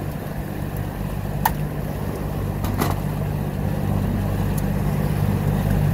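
Small fishing boat's engine running steadily underway, with water and wind noise over it and a couple of sharp knocks, one about a second and a half in and another near three seconds.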